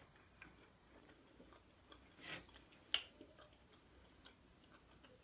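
Faint small clicks and scraping of a metal fork in a small glass of melted garlic butter, with one sharper clink about three seconds in.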